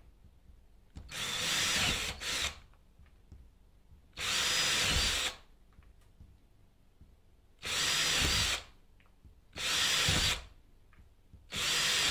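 Power drill boring pilot holes through the outer skin of a uPVC window frame, one short burst of about a second per hole, roughly every two to three seconds.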